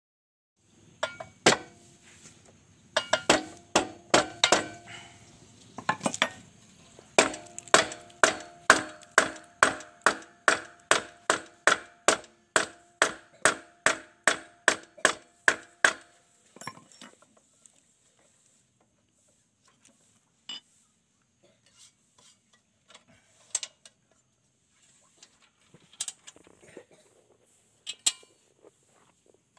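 Repeated sharp metallic taps or clicks with a short ringing tone, irregular at first, then a steady run of about two or three a second, then only a few scattered clicks: metal parts of a bench drill press being worked during assembly.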